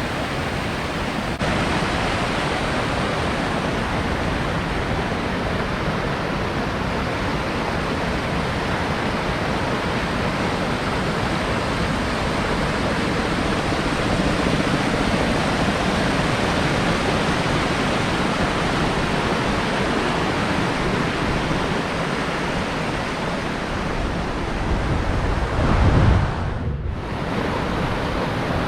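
Steady rushing of fast-flowing water, an even noise with no let-up. A brief low rumble swells near the end.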